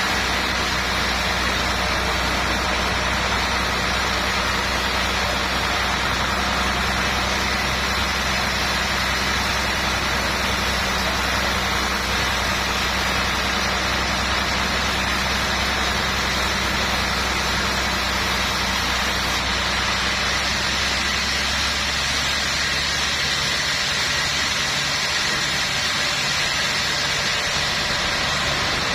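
A machine's motor running steadily at a constant pitch, with an even hum that does not rise or fall.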